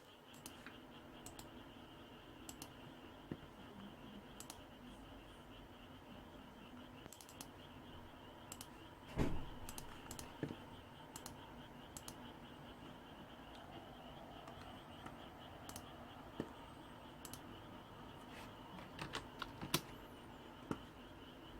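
Computer keyboard keys pressed now and then, with scattered clicks, over a faint steady hum. A louder thump comes about nine seconds in.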